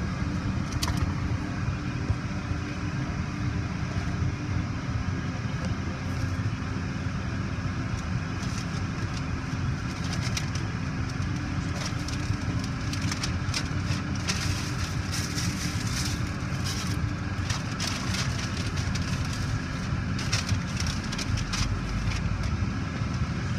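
Steady low rumble of a car's engine and road noise heard inside the cabin as the car idles and creeps forward, with a faint steady hum and scattered light crackles.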